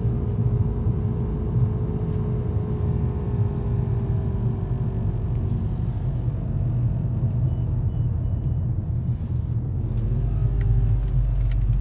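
Inside the cabin of a 2012 VW Golf GTI on the move: a steady low rumble of the car running in a low gear, with a vibrating noise from the rear right of the car that the owner calls very annoying and has not been able to trace. The rumble grows a little near the end.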